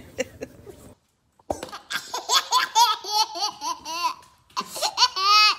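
A toddler laughing in quick repeated bursts of giggles, ending in a longer, higher laugh; there is a brief gap of silence about a second in.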